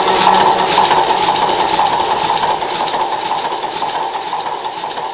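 Running machinery: a steady, rapid mechanical rattle that slowly fades away, heard through a thin old-film soundtrack with faint crackle.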